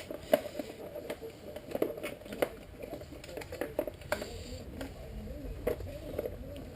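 Light clicks, taps and rustling as a power cord is fed up under a motorcycle's plastic tail fairing by hand.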